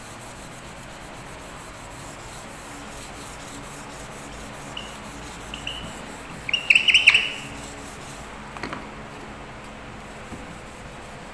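Whiteboard eraser wiping marker off a whiteboard, a steady rubbing. About halfway through, a brief burst of high chirps is the loudest sound.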